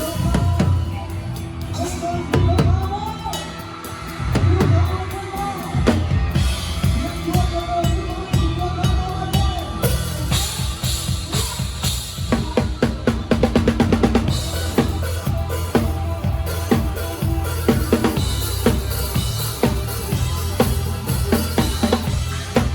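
Live band music, dominated by a close-miked drum kit: bass drum, snare and rimshots keep a steady beat under a pitched melody line. About twelve seconds in the drums play a fast fill.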